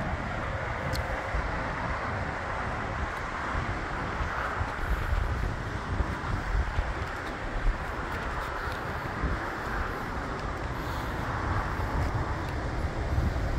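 Gusty wind buffeting the microphone over a steady low vehicle rumble from a Subaru Crosstrek crawling slowly along a rutted dirt track.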